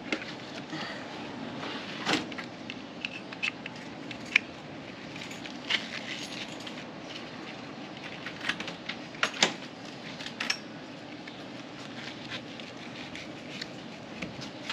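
Plastic buckle and webbing straps of a ride-on toy's seat harness being fastened: irregular small clicks and rattles, a few sharper ones, over steady background noise.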